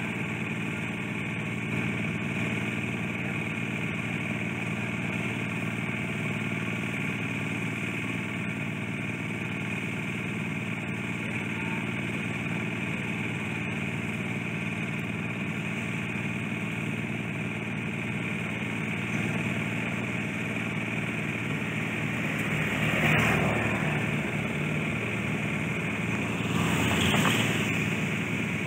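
An engine running steadily at idle. Twice near the end, a few seconds apart, a louder swell rises and falls over it, like vehicles passing by.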